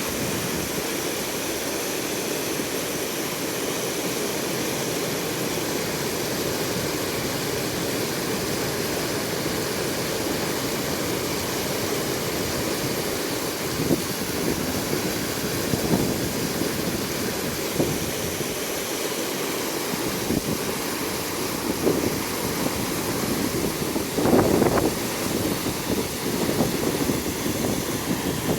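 Steady rush of river water flowing past a low-water bridge, with irregular gusts of wind on the microphone from about halfway through.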